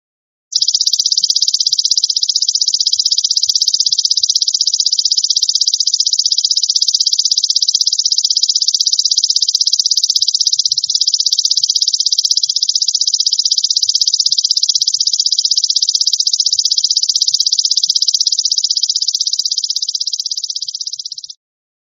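Belalang emas (golden grasshopper) stridulating: a continuous high, rapidly pulsing buzz that starts about half a second in and cuts off abruptly near the end.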